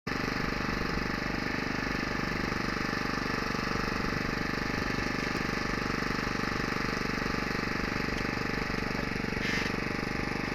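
A small boat's engine running steadily with a fast, even chugging.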